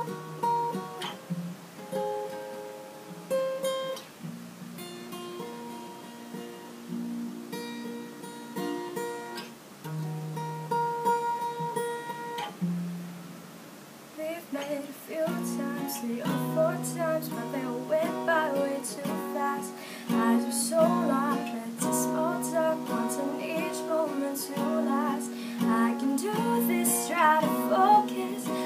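Acoustic guitar, capoed, picked slowly in single notes and chords with pauses, then played fuller and steadier from about halfway through. A woman's singing voice joins in the second half.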